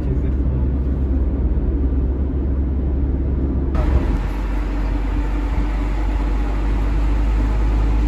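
Car on the move: a steady low rumble of engine and road noise. The sound shifts abruptly about four seconds in.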